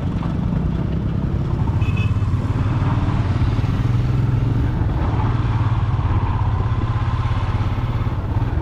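Motorcycle engine running at a steady cruising speed, heard from on board the moving bike.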